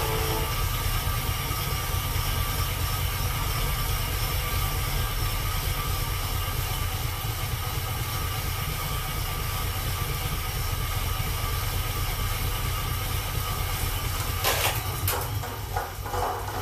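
Road bicycle spinning on indoor rollers: a steady low rumble and whir from the tyres turning the roller drums, with a faint steady whine over it. A few sharp clicks come near the end.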